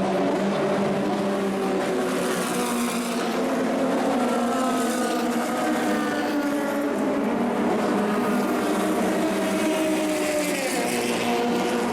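Several 1960s cigar-shaped F2 and F3 racing car engines running together, their pitches rising and falling with the throttle at a steady overall loudness.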